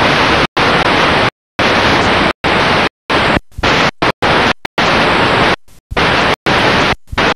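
Loud static hiss from a broken-up video signal, chopping on and off in about a dozen uneven bursts with brief dead-silent gaps between them. It cuts off suddenly at the end.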